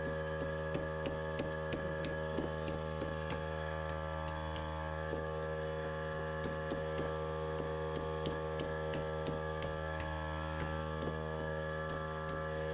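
Air compressor's electric motor running with a steady hum, with faint irregular ticks as the tire is bounced on the rim to try to seat the bead.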